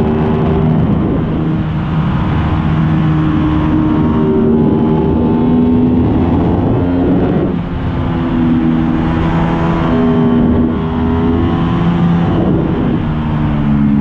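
Aprilia RS660's parallel-twin engine heard from on board while riding, its revs climbing steadily and then dropping sharply about halfway through and twice more near the end.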